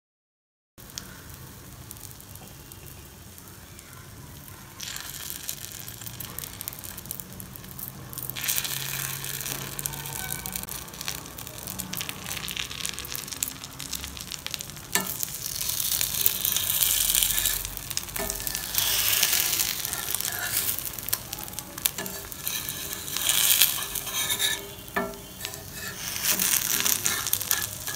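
Egg omelette sizzling in hot oil on a flat iron tawa, the sizzle growing louder a few seconds in, with a few sharp clicks of the steel spatula against the pan.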